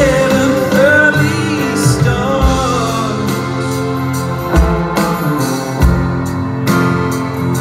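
A live band with a string section and trumpets plays a slow song. A man sings for the first few seconds, then the instruments carry on alone with heavy beats.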